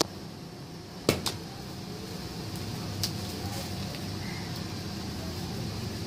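Hand cutter snipping through the twigs holding a wild honey bee comb: two sharp snaps about a second in and a lighter one about three seconds in, over a steady low hum.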